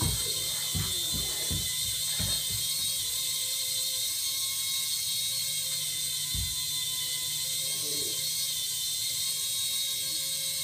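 Small electric motor and spinning propeller wings of a light-up flying fairy toy, making a steady high buzzing whir as it hovers. A few dull low thumps come in the first couple of seconds, and one more about six seconds in.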